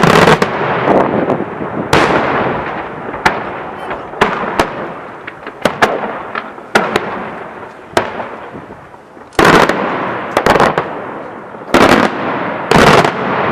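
Daytime aerial fireworks shells bursting in a rapid, irregular string of sharp bangs, each echoing away. Four heavier blasts come close together in the last few seconds.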